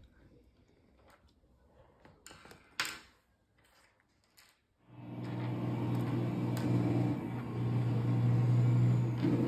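A few light plastic clicks and taps, one sharper than the rest a little under three seconds in. About five seconds in, a steady machine hum with a low, even pitch starts abruptly and keeps going.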